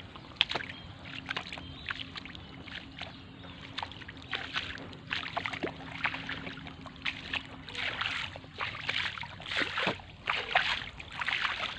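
Irregular sloshing and splashing of feet wading through shallow water, getting busier in the second half.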